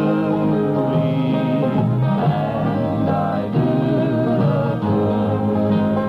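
Acoustic string band playing an old-time country tune live: plucked strings under a held melody line, with no break.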